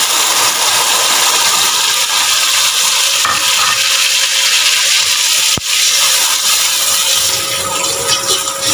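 Yogurt and spice mixture sizzling in hot oil in a stainless steel pot, a steady loud hiss. There is one sharp click about halfway through, and near the end a wooden spoon stirs and scrapes through the mixture.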